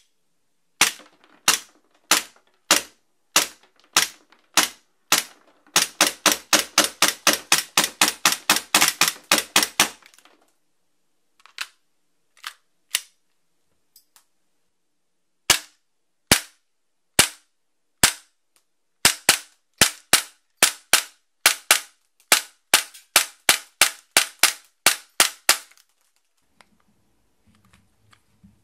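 Cybergun/VFC FNX-45 Tactical gas blowback airsoft pistol firing, its slide cycling with each sharp crack. It starts with single shots a little over half a second apart, then a fast run of about five shots a second. A few spaced shots follow, then another quick run, and faint handling clicks come near the end.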